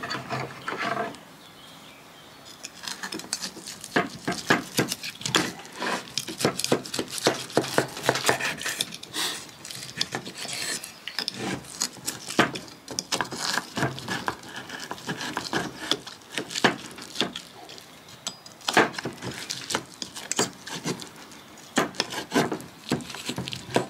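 Steak knife sawing through a grilled bone-in steak and scraping on a wooden cutting board, with a fork clicking against it: a long run of quick scrapes and clicks, broken by a few short pauses.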